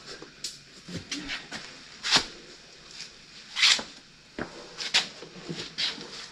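A large R4 tractor tire on its steel rim being handled, rolled and stood up on a concrete floor: scattered knocks, scuffs and rubbing, with two louder short scrapes about two and three and a half seconds in.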